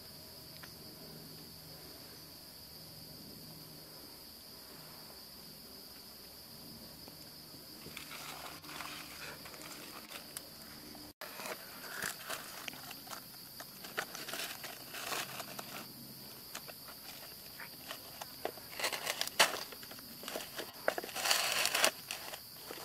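Steady high drone of insects. From about eight seconds in, dry banana leaves rustle and crinkle as hands handle them, with a dense run of crinkles near the end as a charred banana-leaf parcel is untied.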